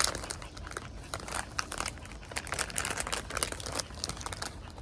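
Plastic snack packaging crinkling in the hands as a bag of gummy candies is handled and opened: a dense, irregular rustle of short crackles.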